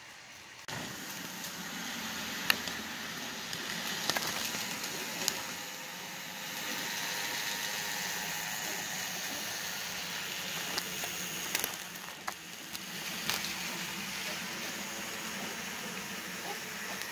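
Model freight train rolling past, a steady rushing rattle of wheels on track with a few sharp clicks scattered through it. It starts abruptly under a second in.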